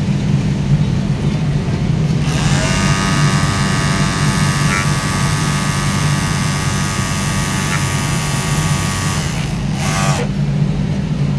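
Juki MO-2400 overlock sewing machine stitching and trimming a fabric edge at high speed. About two seconds in it spins up with a rising whine, runs at a steady speed for about seven seconds, then winds down, with a brief second burst shortly after. A steady low hum runs underneath throughout.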